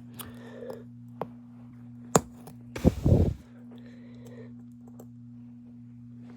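Clicks and taps of hand tools on the small hard parts of a phone camera module being taken apart: sharp single clicks in the first two seconds, then a louder cluster of knocks about three seconds in, with a short scrape after it. A steady low electrical hum underlies it all.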